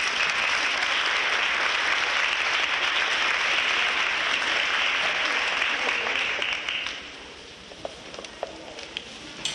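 Audience applauding steadily, the clapping fading out about seven seconds in, followed by a few faint clicks.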